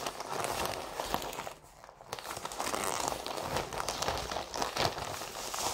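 Potting soil being scooped and poured into a plastic flower pot, a dry crunching rustle with crinkling plastic. It comes in two goes, with a short lull about two seconds in.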